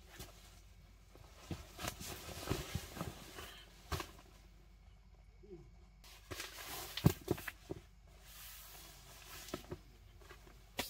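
Fabric of a sleeping bag rustling as it is handled and unrolled, in two spells of about two seconds each, with a few sharp knocks; the loudest knock comes about seven seconds in.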